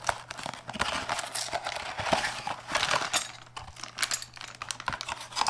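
Hands rummaging through cardboard and plastic packaging: an irregular run of rustles, crinkles and small clicks and knocks.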